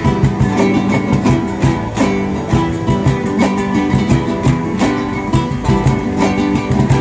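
Instrumental music led by plucked guitar, with a steady beat and no singing.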